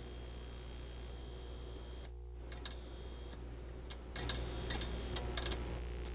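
Electronic intro sound effects: a high beeping tone that switches on and off, with sharp ticking clicks over a steady low hum. The clicks come thickest from about four seconds in.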